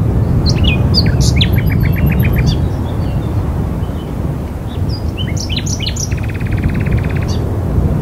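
Songbirds chirping and trilling in two bursts, starting about half a second in and again about five seconds in, the second ending in a fast buzzy trill. Underneath is a steady low rumble of wind.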